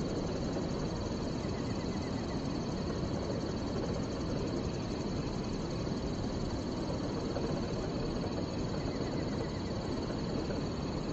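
Outdoor riverbank ambience: a steady low rushing noise with a steady high-pitched buzz above it. Two faint short trains of chirps come about two seconds in and near the end.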